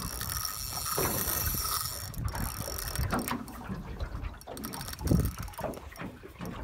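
Spinning reel's drag buzzing as a hooked fish pulls line off against it, most steady in the first couple of seconds, then more broken.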